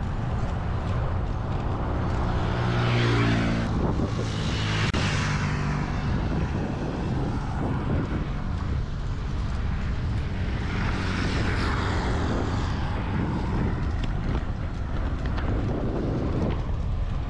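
Wind rumbling on the microphone of a camera on a moving road bicycle, with motor vehicles passing. One engine note drops in pitch as it goes by about three seconds in, and another vehicle passes around eleven seconds in.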